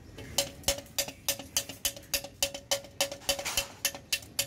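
Hammer tapping out a dent in a Honda CD 70's chrome front mudguard: steady metallic strikes, about three a second, each with a short ring.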